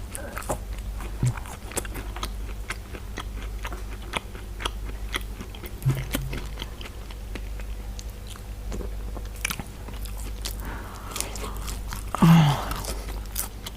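Close-up chewing and biting of food, with many small sharp mouth clicks and crunches. About twelve seconds in comes a brief, louder sound from the mouth or throat.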